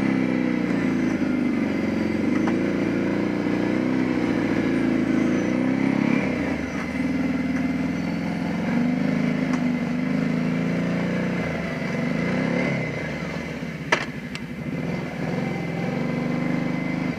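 ATV engine running at low revs in four-wheel drive, its pitch rising and falling as the quad crawls up a snowy slope under winch power. A single sharp click comes about 14 seconds in.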